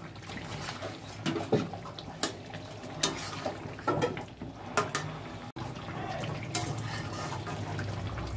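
Metal spatula clinking and scraping against a metal karahi at irregular moments as it turns pieces of katla fish in thin simmering curry, over the steady sound of the liquid.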